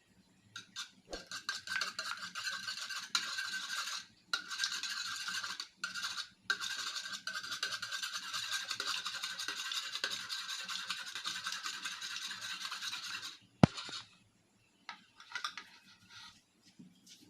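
Rapid whisking in a mixing bowl, a fast scraping rattle with a few short breaks, ending in one sharp knock, like the whisk tapped on the bowl's rim.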